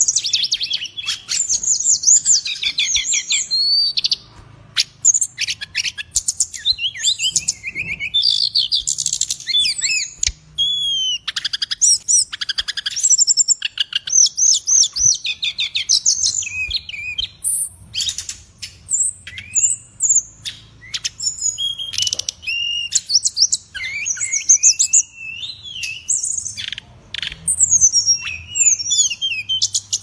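Caged sikatan rimba dada coklat (jungle flycatcher) singing continuously in full voice: a rapid, varied run of high warbling phrases, trills and sharp chips with only brief pauses.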